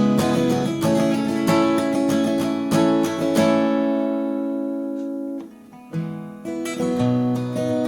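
Taylor PS14ce Grand Auditorium acoustic guitar being played with picked and strummed chords; about halfway through a chord is left to ring and fade out, there is a brief pause, and the playing picks up again.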